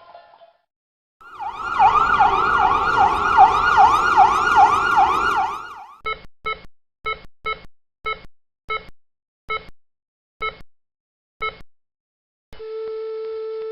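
Siren in fast repeated rising-and-falling sweeps for about four seconds, then cut off. It is followed by a heart monitor's short beeps that slow from about three a second to one a second, and near the end a continuous flatline tone, the sign of cardiac arrest.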